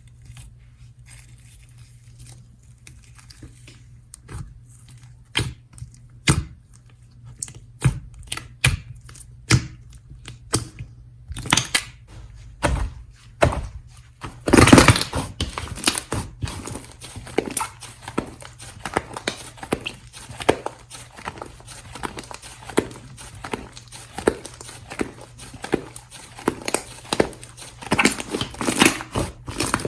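Slime being squeezed and stretched by hand, giving sharp sticky pops and clicks. They are spaced out at first, there is one longer, louder pop about halfway, and then a rapid run of pops follows.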